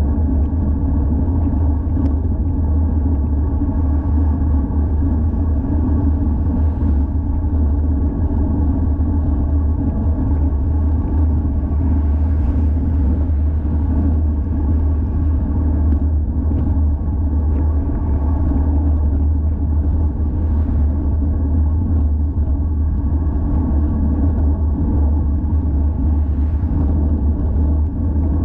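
Steady rumble of wind and road noise on an action camera mounted on a moving road bike, with no letup.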